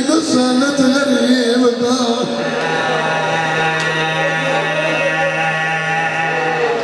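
A man chanting in a melodic recitation style into a microphone, his voice moving up and down for about two seconds and then holding one long steady note for about four seconds before breaking off.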